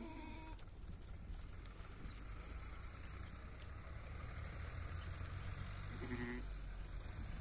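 Sheep bleating in a flock: one short call at the very start and another about six seconds in, over a steady low rumble.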